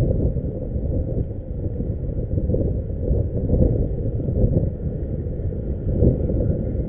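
Wind buffeting the microphone of a kayak-mounted camera: a steady low rumble that swells and eases irregularly.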